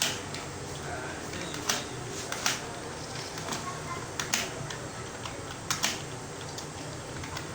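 Computer keyboard being typed on at a steady, unhurried pace of about 34 words a minute, giving irregular sharp key clicks over a steady low room hum.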